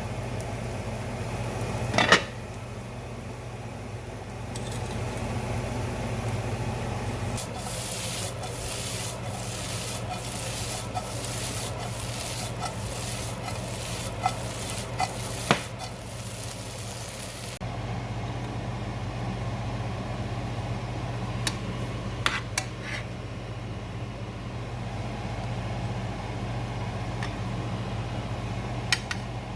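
Tofu stir fry being stirred in a pan, with repeated scraping strokes about twice a second through the middle and a few sharp clinks, over a steady low hum.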